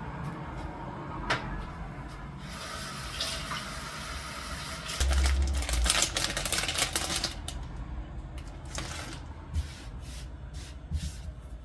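Kitchen tap running for about five seconds, with a low thump partway through and light knocks and clicks after the water stops.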